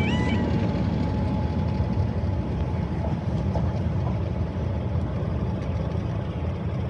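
A train running with a steady low rumble that slowly fades.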